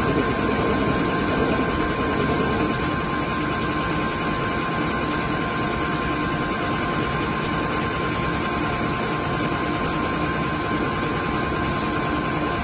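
CNC lathe running a cut: the spindle turning the chuck while the turret tool machines the part and coolant sprays over it. A constant mechanical noise with a steady high whine over it.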